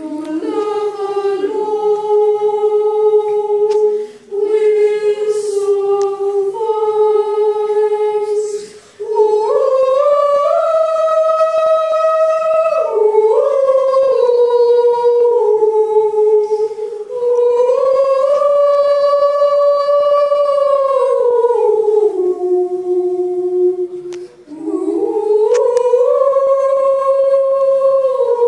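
A boy treble singing solo a cappella in long, slow held notes that rise and fall, pausing for short breaths about four, nine and twenty-four seconds in.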